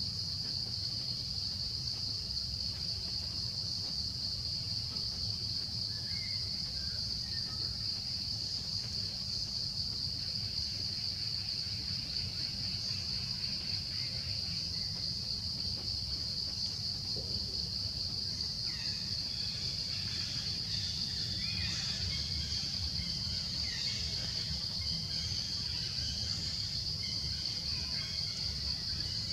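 A steady, high-pitched insect chorus drones without a break over a low rumble. A few faint chirps come in, mostly in the second half.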